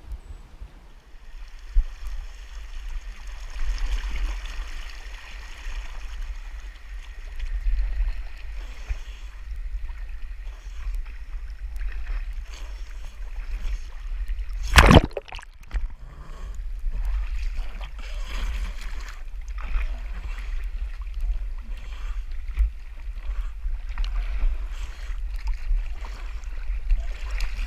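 Creek water sloshing and lapping close to the microphone, with a steady low rumble under it and one loud sharp knock about halfway through.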